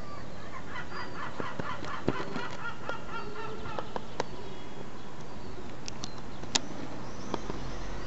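Gulls calling: a quick run of short, repeated honking notes lasting about two seconds, followed by a few scattered sharp clicks.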